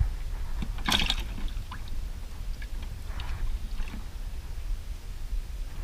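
Unhooking a redfin perch with pliers over the boat's fish well: a sharp rattle about a second in, then small clicks and soft splashy handling noises, over a steady low rumble.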